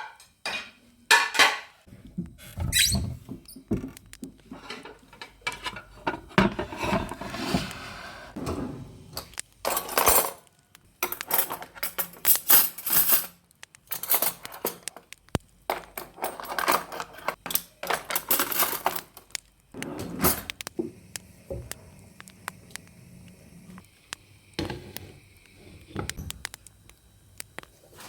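Kitchen handling sounds: cookware and utensils clinking, knocking and scraping in a string of separate strokes, with some squeaks.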